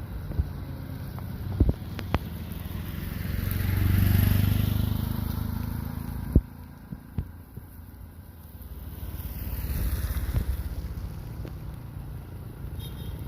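Excavator's diesel engine running, swelling louder twice as it works and easing back in between, with a few sharp knocks.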